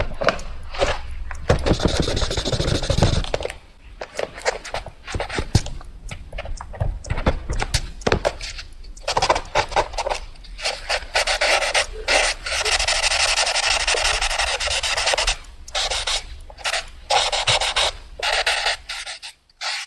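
Fast drawing: a drawing tool scratching quickly back and forth in rapid strokes, in runs broken by short pauses, with one longer unbroken stretch past the middle. A few low knocks come in the first few seconds.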